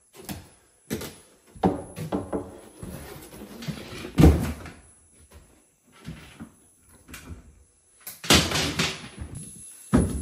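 A series of household knocks and bumps, the loudest about four seconds in, with a longer scraping, rustling noise about eight seconds in.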